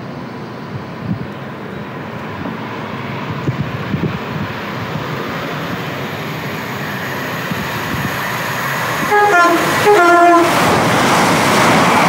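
A GWR passenger train approaches and its running noise builds steadily. About nine seconds in it sounds two short two-tone horn blasts, each stepping from a higher to a lower note. The loud rush of the train passing the platform follows.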